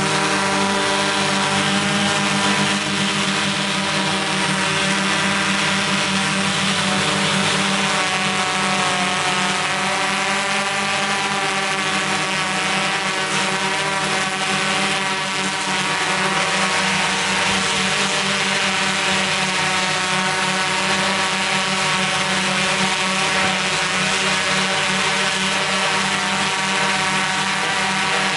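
Steady motor drone, a many-toned hum whose pitch wavers slightly but never stops.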